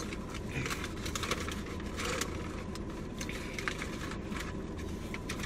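Close-up chewing and mouth sounds of someone eating fried fast food: a run of small, irregular clicks and crackles.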